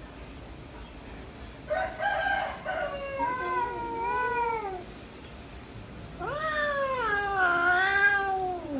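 A domestic cat giving two long, drawn-out yowls that waver in pitch and slide down at the end, the second louder. This is the hostile caterwaul of a cat squaring off against another cat over food.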